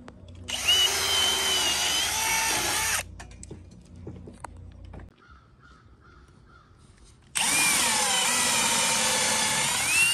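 Power drill running in two bursts of about two and a half and three seconds, its motor pitch wavering as the trigger is squeezed and eased.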